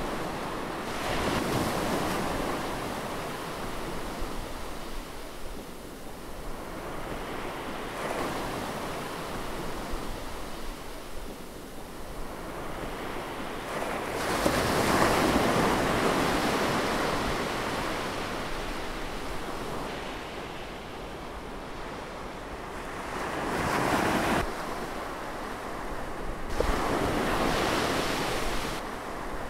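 Heavy ocean surf: big waves breaking and churning into whitewater. The noise swells several times as sets crash, loudest about halfway through.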